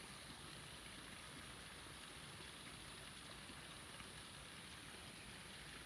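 Near silence: a faint, even hiss with no distinct events.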